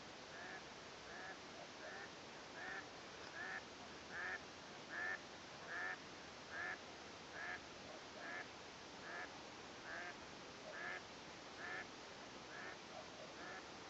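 Waterfowl on open water giving a long, even series of short calls, a little faster than one a second, growing louder toward the middle and then fading.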